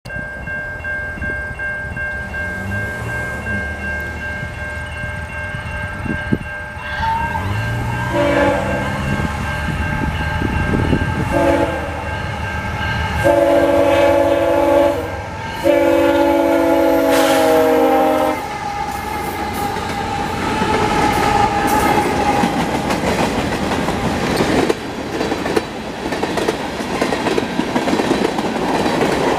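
Canadian National freight train led by GE ET44AC diesel-electric locomotives approaching and passing. The engine rumble builds, then the horn sounds four chords, the last the longest. The locomotives go by and a string of tank cars and covered hoppers rolls past with clattering steel wheels.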